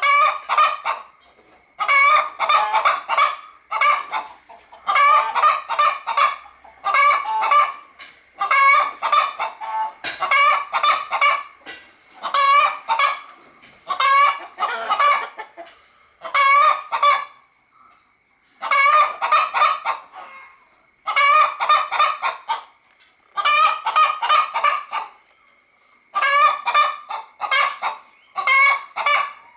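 Hen calling in repeated bursts of rapid, loud clucking notes. The bursts come about every one to two seconds in a steady rhythm.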